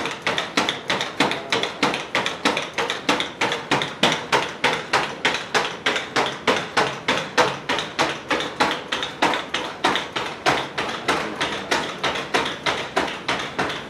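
Cassie bipedal robot's feet striking a hard floor as it steps in place and walks: sharp taps in a fast, even rhythm of about four a second.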